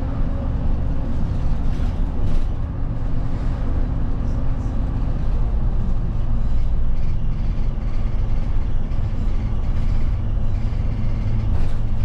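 A route bus heard from inside the cabin while under way: a steady engine hum with road rumble. The engine note changes about five seconds in.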